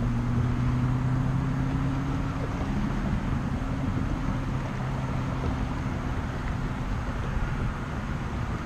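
Steady low engine hum, its pitch shifting slightly about three seconds in, over a low rumble.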